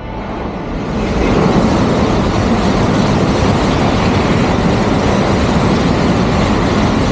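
Tokaido Shinkansen N700-series bullet train passing at speed on a viaduct: a rushing noise of air and wheels on rail that swells over about the first second, then stays loud and steady as the long train goes by.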